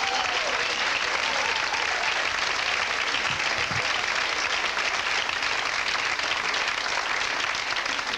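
Comedy club audience applauding steadily, welcoming a comedian to the stage.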